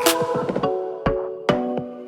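Background music: a beat with regular drum hits under sustained keyboard-like chords.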